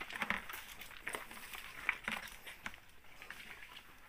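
Irregular crunching and scraping of footsteps on loose stones and gravel.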